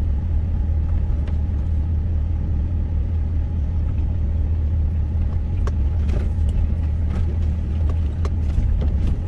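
Steady low rumble of road and engine noise heard inside a moving Hyundai Starex camper van, with a few faint ticks in the second half.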